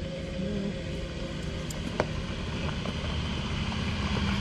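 Off-road 4x4 engines running steadily, growing louder near the end as a second 4x4 drives up the dirt track; a single sharp click about two seconds in.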